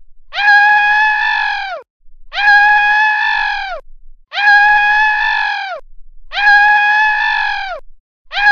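Cartoon crying wail, a drawn-out "waaah" that holds its pitch and then drops at the end, looped identically about every two seconds: four times, with a fifth starting near the end.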